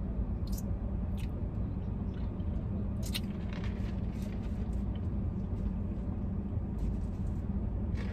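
Steady low hum of a car running while parked, heard from inside the cabin. Light clicks and taps, clustered around three to four seconds in, as a paper fountain-drink cup with a straw is lifted and sipped from.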